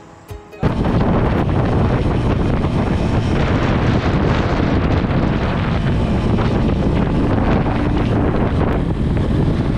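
Heavy wind buffeting on an action camera's microphone as a Keeway CR152 150cc motorcycle cruises at road speed, the bike's running drowned under a steady roar of rushing air. It cuts in abruptly about half a second in, after a moment of soft music.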